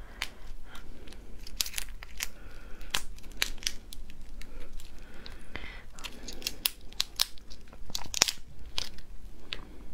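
Hard shell of a raw slipper lobster cracking and tearing as it is pulled off the meat by hand: an irregular run of sharp snaps and crackles.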